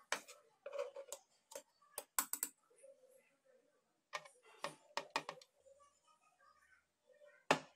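Watermelon chunks being handled and dropped into a plastic blender jar, making irregular clicks and soft knocks, some in quick runs, with the loudest knock near the end.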